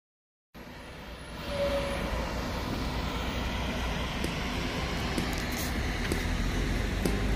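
Roadside traffic ambience: a steady hum of road traffic with low rumble, starting about half a second in and swelling over the next second before holding steady.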